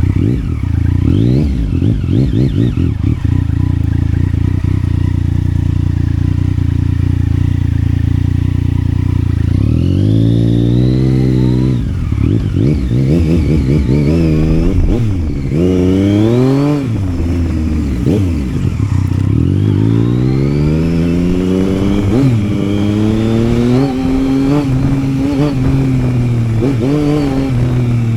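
Yamaha Tracer 900's inline three-cylinder engine running. It holds a steady cruise for the first nine seconds or so, then accelerates through several gears, revs climbing and dropping at each shift. It eases off briefly, then picks up again and settles into steady running.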